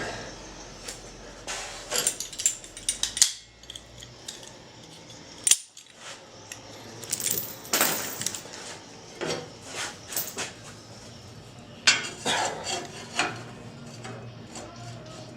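Irregular metallic clinks, clanks and scrapes of steel parts and a framing square being handled and set against a steel truck frame, in several short clusters with the loudest knocks about three seconds in and again about twelve seconds in.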